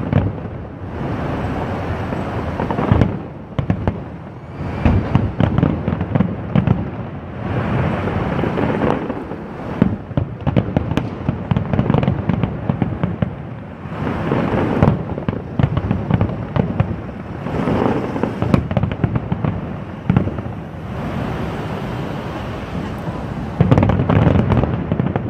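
Large fireworks display going off in a near-continuous barrage of deep booms and overlapping bursts, with stretches of sharp crackling from crackle shells. A cluster of heavy booms comes near the end.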